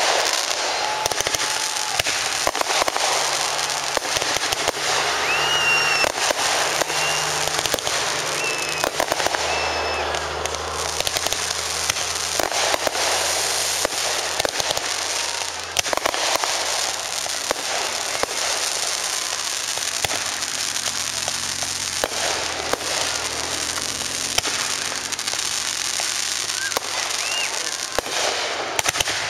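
Aerial fireworks going off in a dense, continuous run of bangs and crackling as shells burst one after another. A few short high whistles sound about six to ten seconds in.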